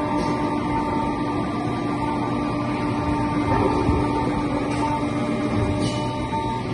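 CNC vertical milling machine running with flood coolant spraying onto the workpiece: a steady mechanical hum with a dense hiss and a steady low tone that stops near the end.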